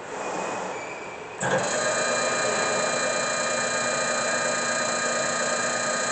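Leblond Regal geared-head engine lathe running under power. A quieter, fading sound gives way about a second and a half in to the spindle switching on, and the gearhead then runs steadily with a constant high gear whine.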